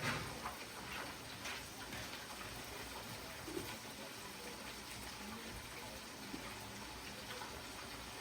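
Fish frying in hot grease: a steady sizzle with a few faint crackles.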